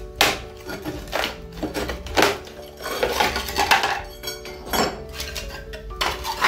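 Metal chisel prying and chipping old ceramic tiles off a concrete counter: sharp knocks and clinks at irregular intervals, with a longer rasping scrape about three seconds in. Background music plays throughout.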